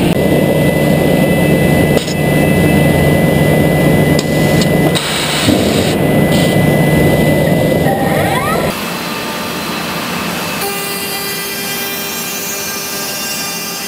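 Homag BAZ 32/50K Optimat CNC machining centre routing and drilling wood panels: a loud, steady rush of cutting noise with a spindle hum, changing abruptly a few times. About eight and a half seconds in comes a short rising whine, after which the machine runs quieter with a thin, high whine.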